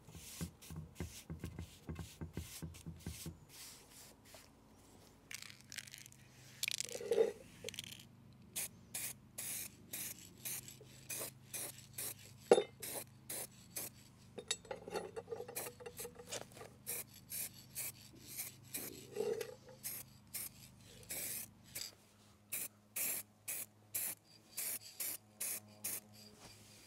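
Rhythmic rasping, scraping strokes, about two a second with short pauses, over a faint steady low hum. One sharp knock about halfway through is the loudest sound.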